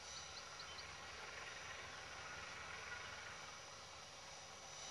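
Faint, steady low rumble of distant diesel freight locomotives, a GE U20C and two GE U15Cs, moving slowly, under outdoor hiss. A rapid run of high chirps, about five a second, fades out within the first second.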